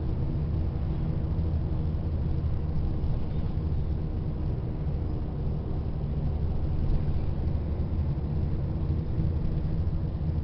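Steady low rumble of engine and road noise heard from inside a moving vehicle, with a faint constant drone over it.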